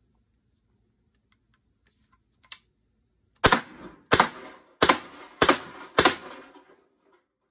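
PepperBall VKS compressed-air (HPA) launcher firing five shots in quick succession, about two thirds of a second apart, each a sharp pop with a short ringing tail. A single light click comes about a second before the first shot.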